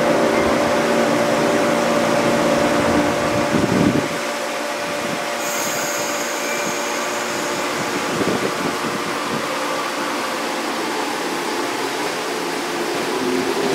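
JR Kyushu 415 series electric train with a steady mechanical whir. Several steady tones stop about four seconds in, and the whir carries on. A brief high hiss sounds about six seconds in.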